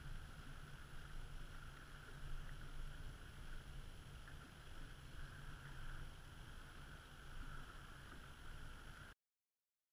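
Wind rumbling on the camera microphone over a faint hiss of small waves lapping at the lakeshore. It cuts off suddenly about nine seconds in.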